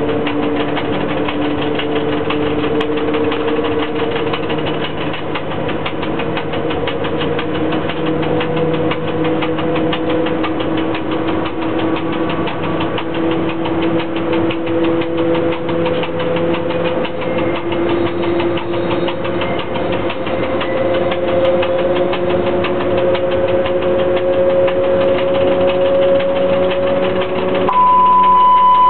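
ChS4T electric locomotive heard from inside the driver's cab while running with a passenger train: a steady mechanical rumble and rattle with a whine from the traction drive whose pitch slowly rises as the train gathers speed. Near the end a steady high beep starts.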